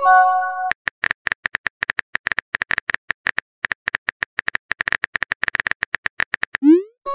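Texting-app sound effects: a short chime of several tones as a message bubble pops in, then a long run of quick keyboard tap clicks as a reply is typed, and a quick rising whoosh near the end as it is sent.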